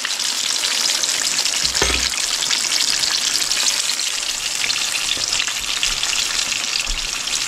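Cornmeal-battered crappie pieces frying in hot oil in a cast iron skillet: a steady crackling sizzle, with one brief knock about two seconds in.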